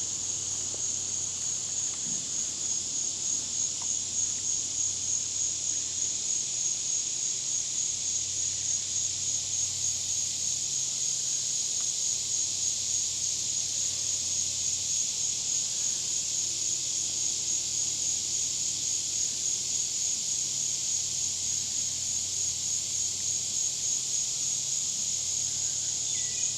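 Singing insects: a steady, high-pitched buzzing trill with a fast even pulse, held without a break.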